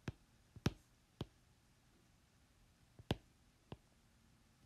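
Hard stylus tip clicking against a tablet screen during handwriting: about five sharp, faint taps at uneven intervals.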